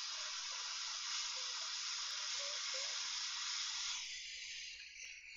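Hot air rework station blowing a steady hiss of heated air, set to 500 degrees with a medium nozzle, onto a tablet's soldered charging port to melt it free. About four seconds in the hiss thins and weakens.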